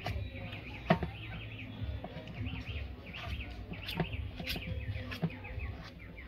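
A metal fork clicks and scrapes against a stainless steel bowl while boiled yam and potato are mashed, with several sharp clicks, the loudest about a second in. Birds chirp in short rapid trills throughout.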